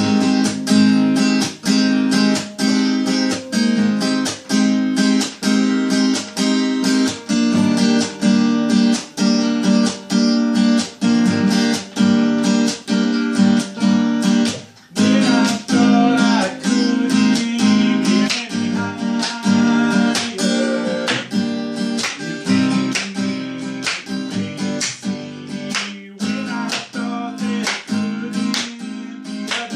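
Acoustic guitar strummed in a steady rhythm, with full chords ringing between the strokes. There is a brief break about halfway through.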